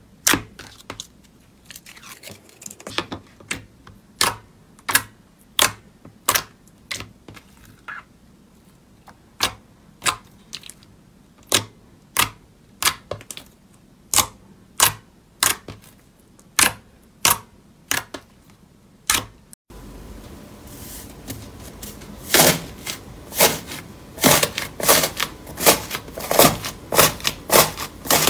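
Clear slime being pressed and poked, giving sharp popping clicks about one and a half a second as trapped air bursts. About two-thirds through, a white fluffy slime mixed with small beads is squeezed by both hands, giving a faster, louder run of crunchy clicks over a steady hiss.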